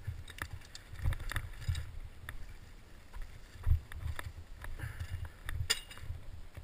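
Giant Faith 2 downhill mountain bike clattering over a rocky trail: irregular sharp rattles and clicks from the bike with dull low thumps, the loudest knock about three and a half seconds in.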